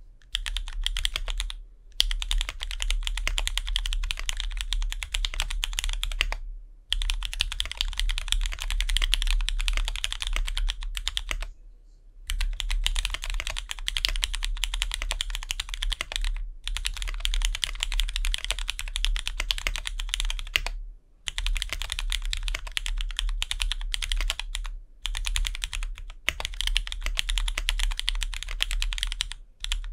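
Fast, steady typing on a GEON F1-8X mechanical keyboard with lubed, retooled Cherry MX Black linear switches, GMK keycaps and an aluminium leaf-spring plate: a dense run of key strikes, broken by short pauses every few seconds.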